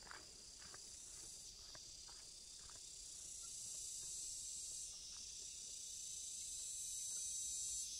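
Steady high-pitched chorus of insects, swelling a little louder about a second and a half in and again about five seconds in, with a few faint ticks over the first three seconds.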